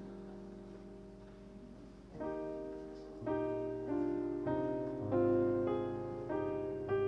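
Piano playing slow, quiet chords: a held chord fades away, then about two seconds in new chords begin, struck roughly once a second, each ringing and fading, growing a little louder.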